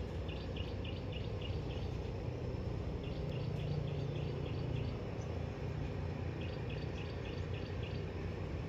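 Outdoor ambience: a steady low rushing noise with insect chirping on top, short high pulses five or six a second in trains of about a second that recur every few seconds.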